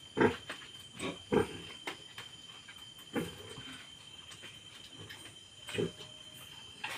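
Pigs grunting, a sow with her newborn litter: about five short, separate grunts spread over several seconds.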